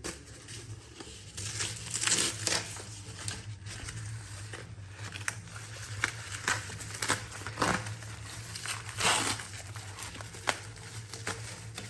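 Packaging being crumpled and handled while unwrapping a metal pot, an irregular crinkling with a few louder rustles.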